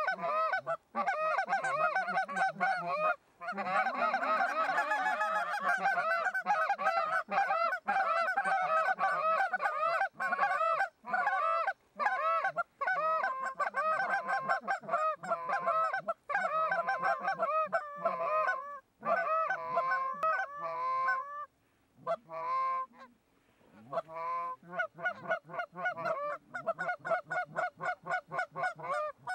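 Goose honks and clucks, many in quick succession and often overlapping, with a short lull about three-quarters of the way through.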